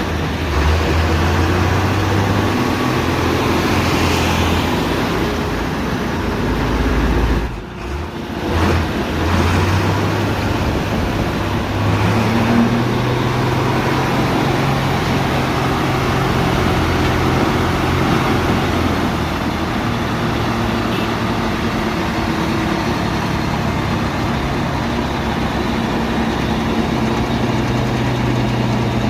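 Hino diesel truck under way in the upper gears, its engine running steadily with a low hum. The sound drops briefly about eight seconds in, as at a gear change, then the engine picks up again at a somewhat higher pitch.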